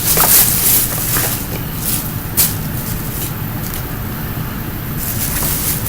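Fireworks packaging handled and rustled, with a few short crinkles near the start, a sharp click about two and a half seconds in, and more rustling near the end, over a steady low hum.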